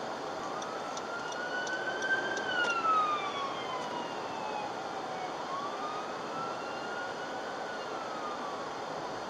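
Emergency vehicle siren wailing, its pitch climbing and falling slowly twice, over steady road noise of a moving car heard from inside the cabin.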